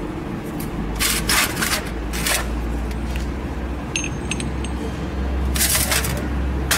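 Small metal parts of a CAT 3126B fuel injector clinking and scraping against a stainless steel tray as they are handled, with a short bright metallic ring about four seconds in and a sharp click at the end. A steady low hum runs underneath.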